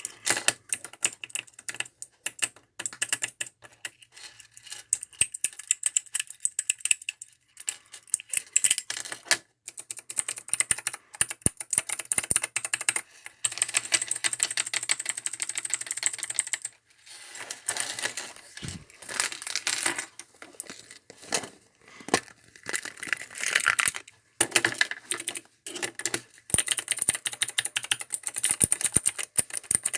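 Handheld clicker toys pressed rapidly over and over, a fast run of sharp plastic clicks like keyboard typing, broken by a few short pauses.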